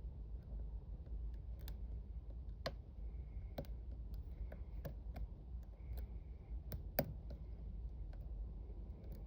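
Hook pick and tension wrench working in a padlock's keyway during single-pin picking: irregular small metallic clicks and ticks as pins are lifted and set, the sharpest about a third of the way in and near three-quarters, over a low steady hum.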